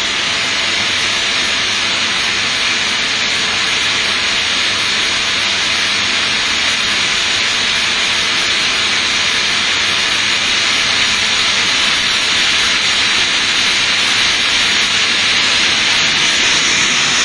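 Steady, loud hiss of factory machinery, even and without rhythm or pitch, growing slightly louder toward the end.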